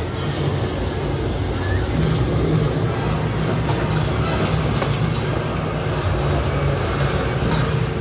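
Heavy construction plant running: a steady diesel drone with a constant rattle of rubble from a tracked mobile crusher being fed by an excavator.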